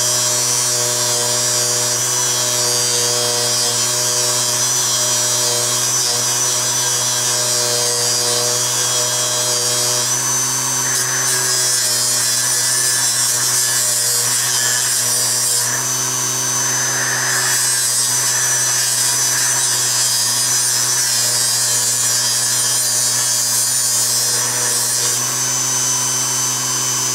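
Small variable-speed bench polisher's electric motor running steadily with a high whine, while a rusty steel socket is held against its spinning Scotch-Brite wheel, adding a scratchy rubbing sound in the middle. The motor hardly drops in speed under the load; its pitch shifts slightly a few times.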